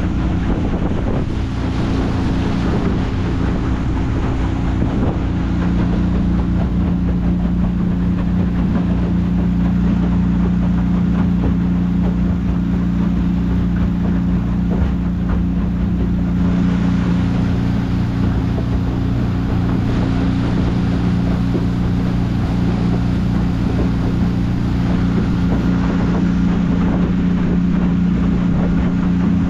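The motor of a 1957 Cadillac boat running at a steady cruising speed, with the hiss of water and wind over it.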